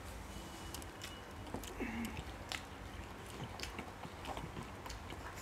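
Faint chewing and mouth sounds of people eating soft, syrupy gulab jamun, with scattered light clicks throughout.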